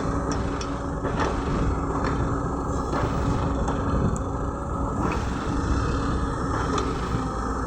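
Caterpillar 120B hydraulic excavator's diesel engine running steadily, with a few short knocks along the way.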